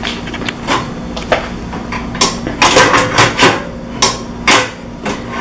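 Metal baking pans clanking against each other and against the wire oven rack as they are pulled and shifted inside an open oven. A few light clicks come first, then a quick run of sharp metal clanks from about two seconds in.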